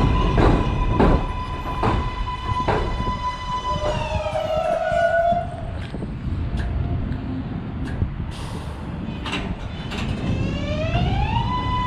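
R188 subway train's propulsion giving a steady high electric whine while its wheels clack over rail joints, the clacks coming further apart as it slows. About four seconds in the whine slides down in pitch and fades, and near the end a rising whine climbs back to the same high tone.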